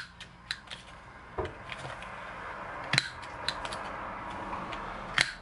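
A small plastic corner rounder punch being worked on a paper card to round its corner: several sharp clicks and snaps with light handling rustle, one of the loudest shortly before the end.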